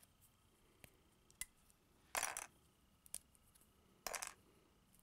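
Hard white plastic model-kit sprue, with the parts still attached, clicking and rattling as it is handled. There are a few light ticks and two short, louder rattles, about two seconds in and about four seconds in.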